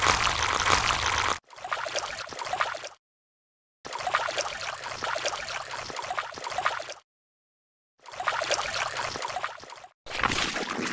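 Watery sound effects of splashing and gurgling, laid over stop-motion animation, in five separate bursts of one to three seconds. Each burst starts and cuts off abruptly into dead silence. The first burst is the loudest.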